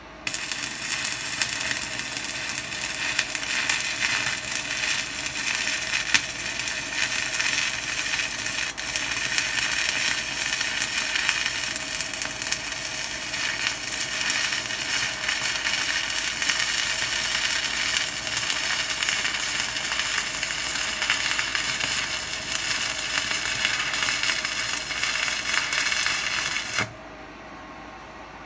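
Stick (MMA) welding arc crackling and sizzling steadily as a Telwin electrode burns along a bead on steel, fed by a Weldinger EW 140 Mini inverter welder. The arc strikes right at the start and breaks off suddenly near the end.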